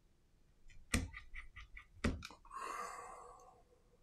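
A precision screwdriver clicking and tapping against a smartphone's internal plastic covers and screws. There is a sharp knock, a quick run of light clicks, a second knock about a second later, then a short scrape that fades away.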